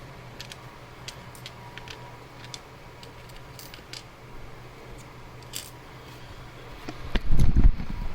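Small metal clicks of lock discs and parts from a taken-apart Abloy disc-detainer cam lock being handled and set down on a work surface, over a steady low hum. A louder, low, rumbling bump comes near the end.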